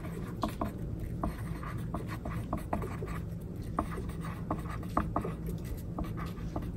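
Writing by hand with a pencil: short scratching strokes and small ticks of the tip on the page, coming a few times a second at an uneven pace, over a steady low hum.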